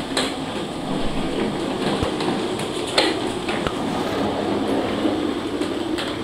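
Small hard wheels of a child's plastic swing car rolling over a wooden floor, a steady rumble with a few sharp clicks and knocks.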